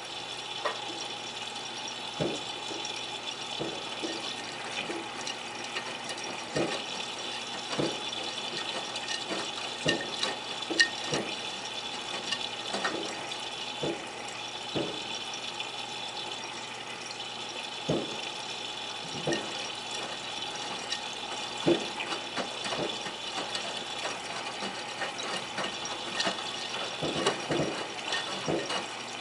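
Miele W3033 front-loading washing machine filling, water spraying steadily into the turning drum, with irregular splashes and knocks as the wet laundry shifts.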